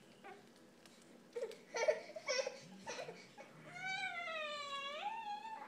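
Infant fussing: a few short cries, then one long whining cry that dips and rises in pitch near the end.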